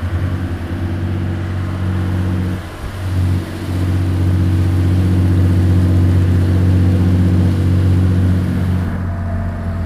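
Lobster boat's engine running with a steady low hum. It dips briefly about three seconds in, then runs a little louder.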